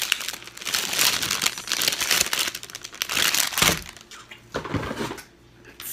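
Clear plastic packaging bag crinkling as it is handled, then a thump and rustling as a hand reaches into a cardboard box, quieter near the end.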